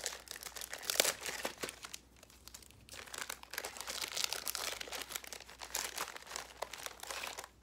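Plastic candy packaging crinkling and tearing as a pack of root beer Peeps marshmallow candies is opened, in two spells of crackling with a short pause about two seconds in.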